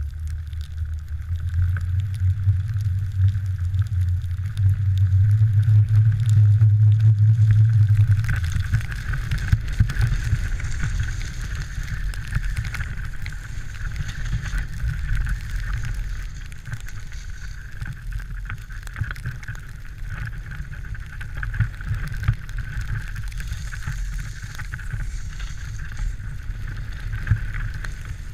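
Skis sliding and carving over snow in a steady hiss, under a heavy low rumble of wind on the pole-mounted camera's microphone; the rumble is strongest for the first eight seconds or so, then eases as the snow hiss comes up.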